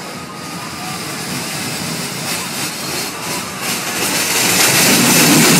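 Small fairground roller coaster train running along its steel track, its wheel noise getting louder as it comes past close near the end.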